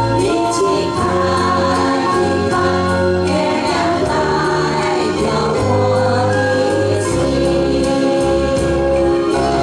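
An amateur group chorus singing a Chinese song together, over a backing accompaniment whose sustained bass notes change every second or so.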